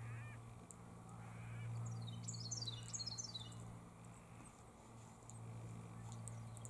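A bird gives a quick run of high chirping notes for about a second near the middle, with a short call right at the start, over a steady low hum.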